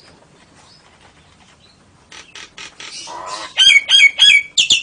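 Caged songbirds calling: faint for the first two seconds, then a few harsh calls, three loud whistled notes about three and a half seconds in, and near the end a loud, rapid trill of repeated chirps, about five a second.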